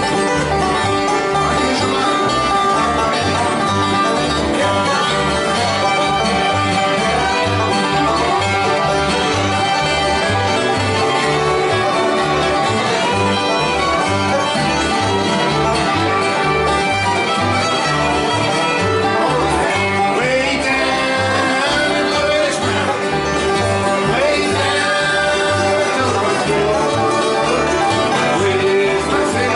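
Live acoustic bluegrass band playing an instrumental passage, with banjo, fiddle and guitar over a steady beat of low bass notes.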